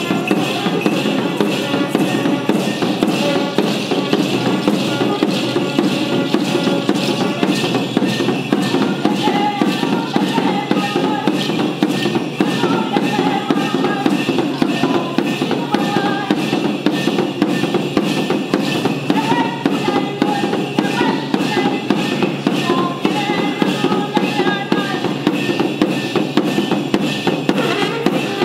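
Mapuche ayekan music for a purrun dance: a drum, most likely a kultrun, beaten in a steady quick rhythm, with short wavering higher notes coming and going over it.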